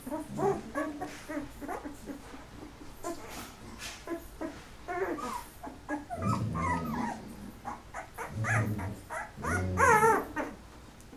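A litter of 13-day-old golden retriever puppies whimpering and squealing in short, wavering cries that overlap one another, growing louder in the second half, with the loudest squeal near the end.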